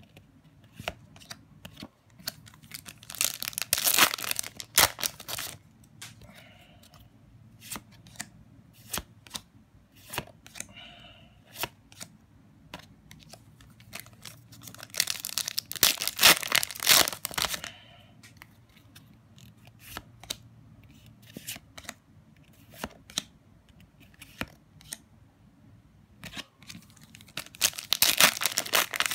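Trading-card booster pack wrappers being torn open: three loud tearing bursts, a few seconds in, around the middle and near the end. Between them come light clicks of cards being handled and flicked through.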